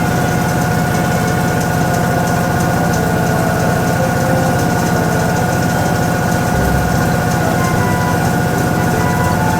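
Toshiba ZABOON top-loading washing machine running its spin cycle: a steady hum with a constant high motor whine.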